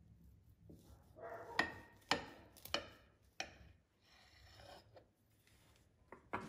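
Chef's knife sawing down through a loaf cake crusted with chopped walnuts: the nut topping crunches and crackles in several sharp cracks, with a rasping of the blade through the crumb in between.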